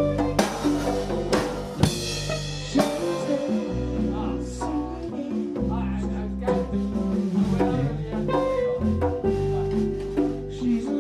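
Background music with a drum kit, bass and steady pitched notes in a jazz style.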